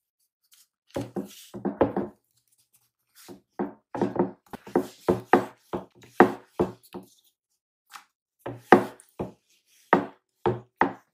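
Wooden rolling pin rolling out a ball of dough on a round wooden board, giving a run of irregular wooden knocks, several a second at times, starting about a second in.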